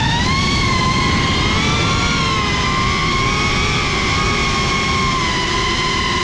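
Drone's electric motors and propellers whining steadily, the pitch rising a little about a second in and then sagging slightly. Heard from the onboard camera, with a dense low rumble of noise underneath.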